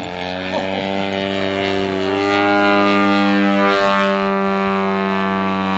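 Radio-controlled model airplane's engine and propeller running at a steady, high-revving pitch, growing louder about two seconds in and easing off near the end.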